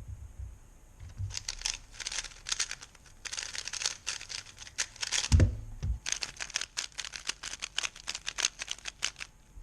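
A MoYu RS3M 2020 speedcube being turned fast: dense runs of rapid plastic clicks and clacks, with a brief pause and a low thud about five seconds in.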